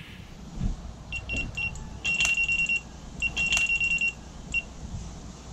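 Electronic carp bite alarm sounding: a few short high beeps, then two longer held tones with beeps between, the signal of line being pulled off as a fish takes the bait. Wind rumbles on the microphone underneath.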